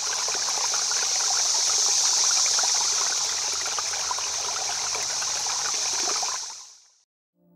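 Running stream water, a steady rushing trickle that fades out near the end.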